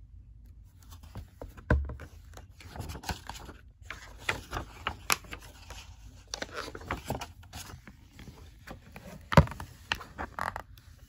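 Pages of a hardcover picture book being turned and handled: paper rustling and scraping under the hand, with a few sharp knocks, the loudest about nine seconds in.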